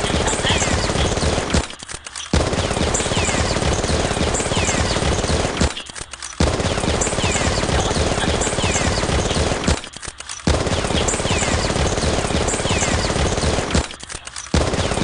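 Automatic-gunfire sound effect: rapid shots in bursts of about three and a half seconds, each broken off by a short pause, repeating evenly about every four seconds.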